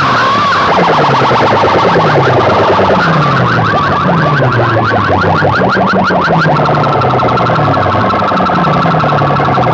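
An electronic siren-like warble played at full volume through stacks of aluminium horn loudspeakers: a fast repeating sweep over a string of falling low notes, going on without a break.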